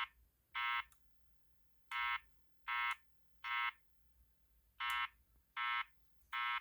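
EST Genesis speaker strobe sounding the temporal-three (code 3) evacuation signal: three short buzzy tones, a pause, then three more, repeating about every three seconds between its voice messages.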